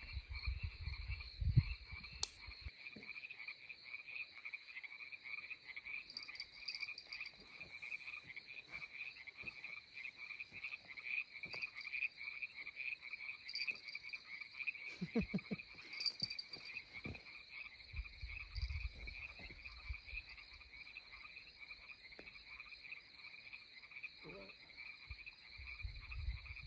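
A chorus of frogs calling without pause, a dense pulsing trill, with a few low rumbles at the start, about two-thirds of the way through and near the end.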